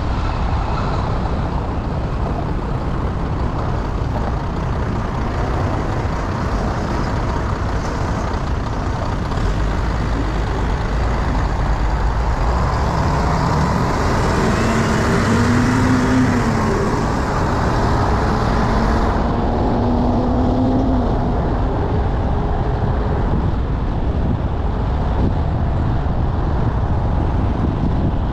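Car driving on a city road: a steady rumble of road and wind noise. It swells for several seconds midway, with an engine note that rises and falls.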